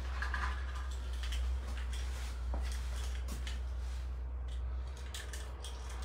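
Steady low rumble of wind buffeting the microphone in a snowstorm, with scattered light clicks and rustles from handling the phone and clothing.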